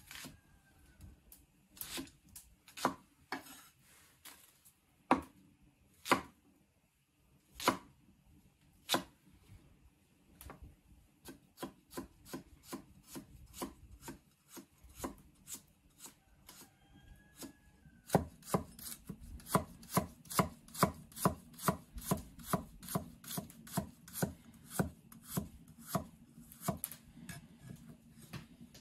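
Chinese cleaver cutting vegetables on a thick wooden log chopping board: red onion, then carrot. The knife knocks on the wood come scattered and uneven at first, then settle about two-thirds of the way in into a steady run of about two to three strokes a second as the carrot is sliced.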